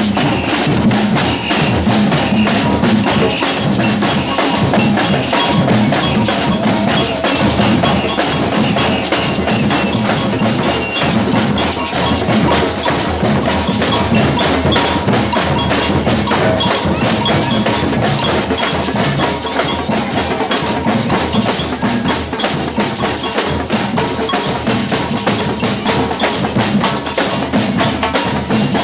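Batucada percussion ensemble playing a fast, dense samba rhythm without a break, drums and bells struck together.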